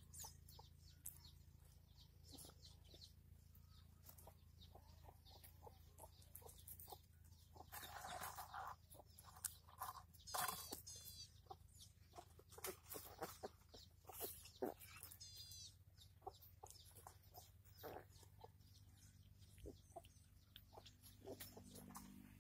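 Faint scuffling and clicks of puppies play-wrestling on dry dirt, with a longer rustle a third of the way in. Short runs of high-pitched calls come about halfway through and again a few seconds later.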